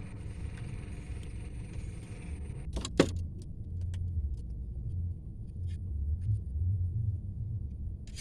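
A steady low rumble, with a sharp knock about three seconds in and a few fainter clicks after it.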